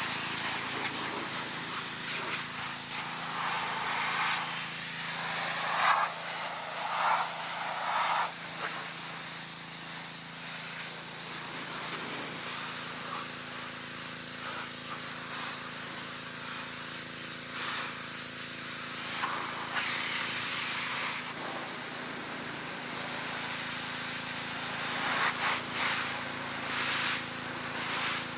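Pressure washer spraying a jet of water onto the rusty steel body of a 1965 VW Beetle: a continuous hiss that swells and spatters as the jet moves across the panels, with a steady hum underneath.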